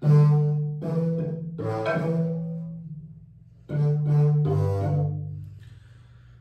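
Low-pitched wooden marimba with tube resonators played with mallets: a short run of struck notes, a brief pause, then two more low notes that ring and fade away.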